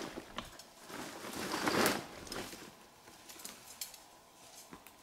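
Rustling and scraping of a nylon mesh fish bag being handled as a freshly caught carp is put away in it, loudest about two seconds in, followed by a few faint clicks.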